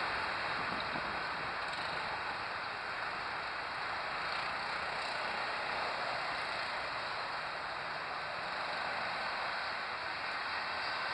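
Steady rushing jet noise with a faint high whine from a twin-engine jet airliner on final approach to land, still some distance off.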